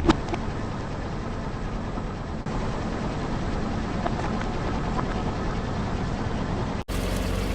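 Car engine idling steadily, with a couple of sharp cracks right at the start.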